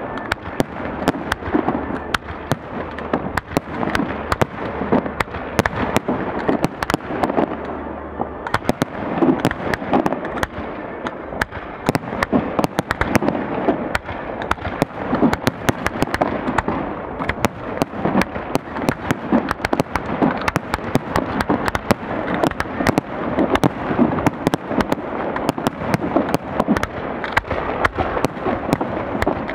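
Fireworks display: a continuous barrage of shell bursts, crackling and popping, with many sharp reports over a dense, rolling rumble of explosions.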